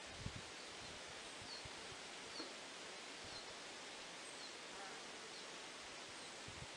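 Summer outdoor nature ambience: a steady soft hiss with faint, short high chirps every second or so. An insect buzzes briefly close by near the start.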